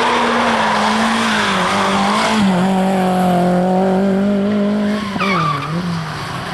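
Audi A3 quattro's engine held at high revs while its tyres squeal and skid as the car slides through tight turns on tarmac. The tyre noise is heaviest in the first couple of seconds, and the engine note drops briefly and swings about five seconds in.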